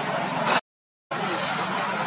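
Steady outdoor background noise like distant road traffic, with a short high chirp twice, about a second and a half apart. The sound cuts out completely for about half a second before the middle, then resumes.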